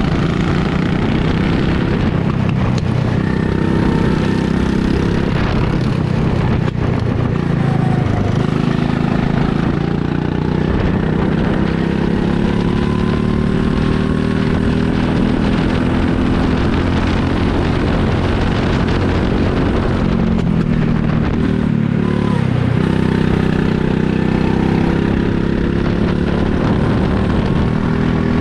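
Rental go-kart's small engine running flat out beneath the driver, its pitch rising and falling again and again as the kart accelerates down the straights and eases off into the corners.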